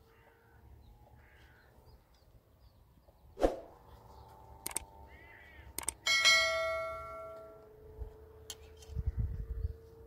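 Tableware clinking as dishes and utensils are handled: a sharp clink about three and a half seconds in, a few small clicks, then a loud clink about six seconds in that rings on for over a second as it fades.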